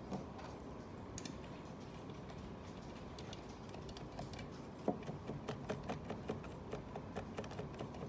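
Faint scattered clicks and small taps of fingers turning the bar-mount nuts on a chainsaw's plastic side cover. There is a louder click about five seconds in, followed by a quick run of small clicks.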